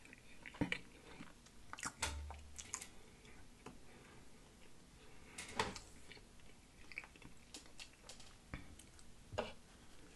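Close-miked mouth chewing a mouthful of tender pot roast: soft, wet smacks and clicks at irregular intervals, with a few sharper clicks standing out.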